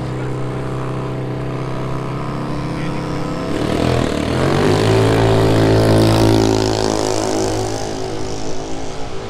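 Drag-racing motorcycle engine running at a steady pitch. About four seconds in, its pitch dips and climbs again and it grows louder for a few seconds before easing off near the end.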